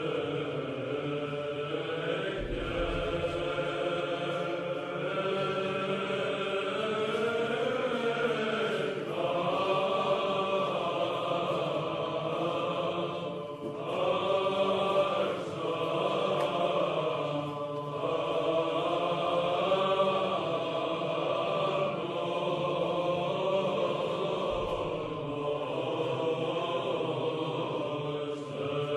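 Byzantine Orthodox chant: voices singing a slow, drawn-out melody over a steady held low drone (the ison).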